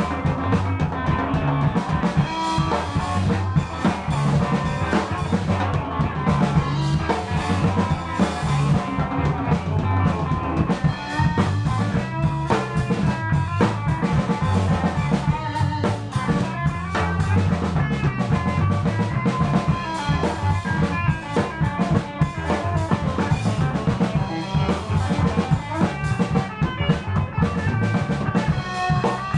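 Live rock band jamming: a drum kit with bass drum and rimshots under guitar and bass.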